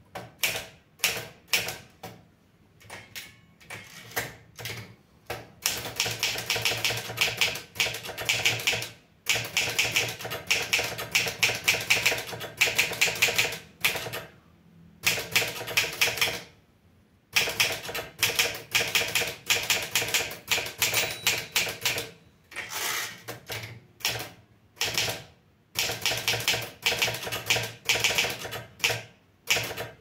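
Olivetti Studio 46 manual typewriter being typed on: runs of rapid key and typebar clacks, broken by short pauses between words, with a longer pause a little past halfway.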